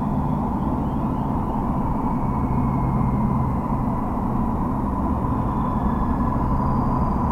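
Car engine and tyre noise heard inside the cabin through a dashcam's built-in microphone while driving, a steady low rumble with an engine hum that shifts slightly in pitch.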